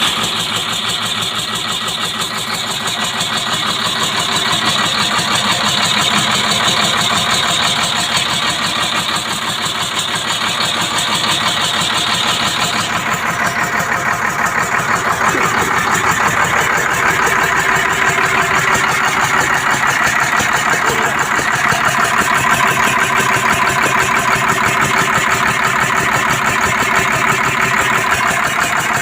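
Large diesel engine of a heavy machine running steadily, a fast even clatter of firing strokes. About halfway through, a higher hiss in the sound drops away.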